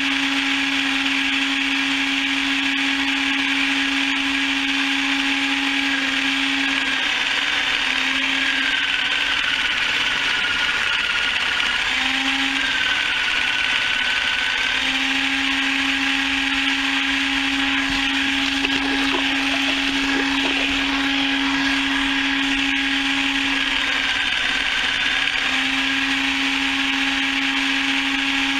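Electric chicken plucker running, a steady motor whir whose pitch sags for a few seconds at a time, typical of the motor slowing as a bird is worked against the rubber fingers.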